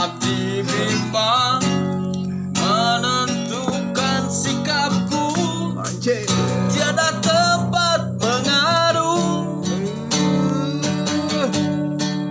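Acoustic guitar strumming with a steady bass, and a man's voice singing a melody over it.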